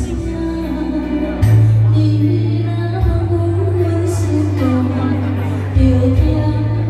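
A woman singing a slow ballad into a microphone over a recorded backing track with a steady bass line, amplified through the hall's PA.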